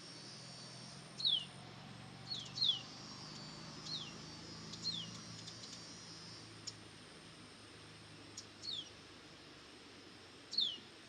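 A bird repeating a short whistle that slides quickly downward in pitch, seven times at irregular gaps of one to two seconds. Faint high chirping runs steadily underneath.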